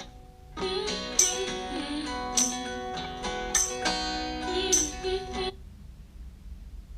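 Strummed acoustic guitar song, with a strong chord every second or so. It stops suddenly about five and a half seconds in, leaving only a faint hiss.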